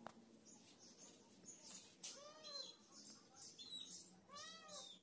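Calico cat meowing, two clear meows about two seconds apart, each rising and then falling in pitch.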